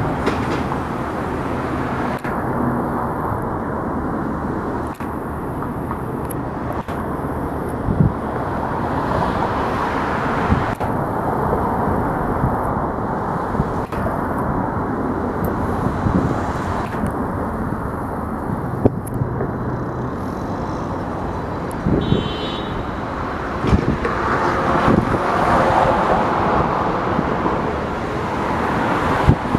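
Slow freight train rolling by: a steady rumble of wheels on the rails with occasional knocks and clanks, and a brief high squeal about three-quarters of the way through.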